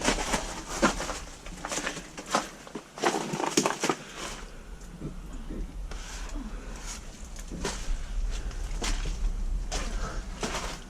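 Irregular crunching footsteps and rustling through brush and debris, busiest in the first few seconds.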